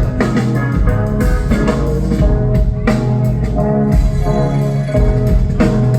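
A rock band playing live, an instrumental stretch of the song: drums and bass keep a steady beat under the rest of the band.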